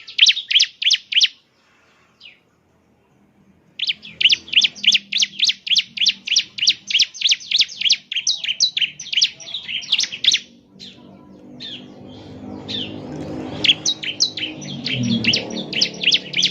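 Ciblek (bar-winged prinia) singing rapid series of sharp, high repeated notes, about five a second, pausing briefly after the first second before a long run resumes. A low rumbling noise rises under the song in the second half.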